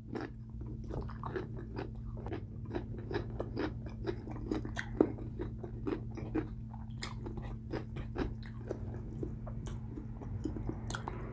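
Close-miked chewing and biting of food, with many small crunches and mouth sounds, over a steady low hum.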